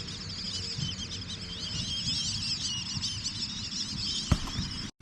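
A dense chorus of many small birds chirping and twittering at once, thick with quick, overlapping high chirps. A single sharp click sounds about four seconds in.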